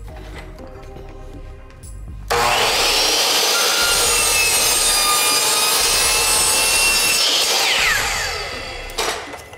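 DeWalt compound miter saw starting abruptly a couple of seconds in and cutting through a length of crown molding. It runs steadily for about five seconds, then the blade winds down with a falling whine.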